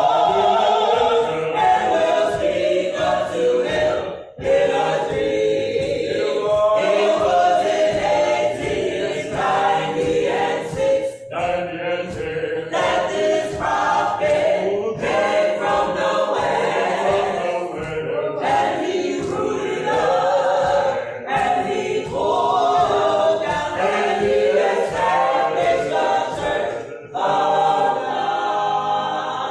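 Church choir singing gospel a cappella, many voices in harmony, with short breaks between phrases.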